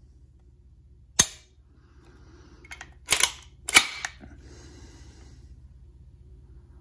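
Hi-Point 995TS 9mm carbine being dry-fired: one loud sharp snap as the trigger breaks about a second in, then a cluster of further mechanical clicks about three to four seconds in. The trigger has long, hard travel, creep, no clean break and a terrible reset.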